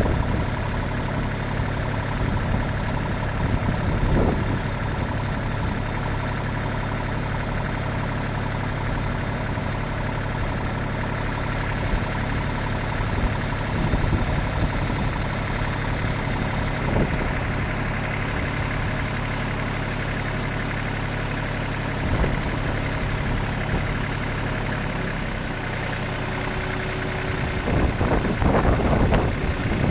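Lawn mower engine idling steadily.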